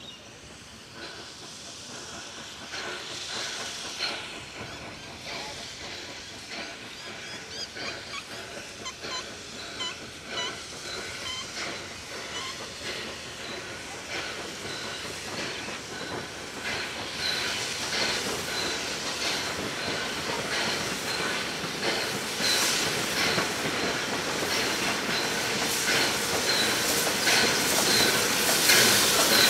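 Steam locomotive 3237, an NSW C32-class 4-6-0, hauling a passenger train as it approaches and passes, growing steadily louder: steam hissing and wheels clicking over rail joints and points, with short high squeaks from the wheels in the second half.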